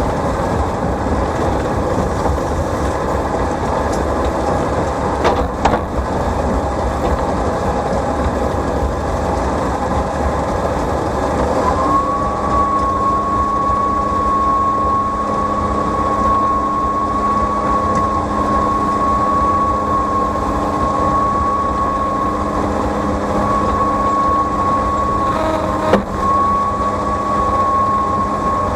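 Farm tractor running steadily under load while pulling a feed wagon. About twelve seconds in, a steady high whine with a hum beneath it joins the engine and holds, briefly dropping out with a sharp knock near the end.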